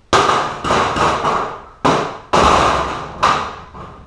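A PVC-pipe air cannon frame knocking and clattering against a stainless steel table as it is set down: about six loud knocks, each with a short ringing tail.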